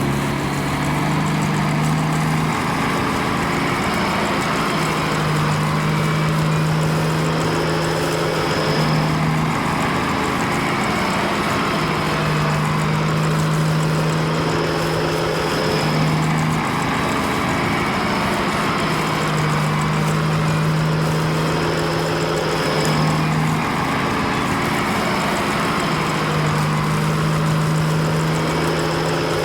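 A cartoon vehicle engine sound effect running steadily, a low engine hum that repeats in an even cycle about every seven seconds, as a loop.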